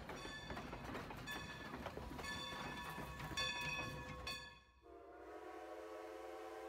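A train running, rattling and clicking along the track. About two-thirds of the way through, a train horn starts and holds one steady blast.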